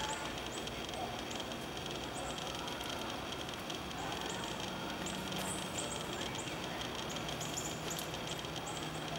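Steady outdoor background hiss with short, very high chirps from small birds, about one a second, bunching up around the middle.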